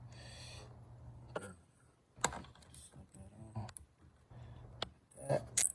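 Hand tools on engine bolts: a socket wrench clicking and tapping in scattered sharp ticks, with a louder cluster of clicks near the end.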